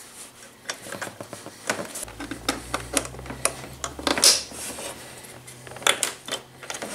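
Plastic push pegs being pressed and snapped into a motorcycle's radiator shroud by hand: a run of irregular sharp clicks and light plastic clatter, with louder snaps about four and six seconds in.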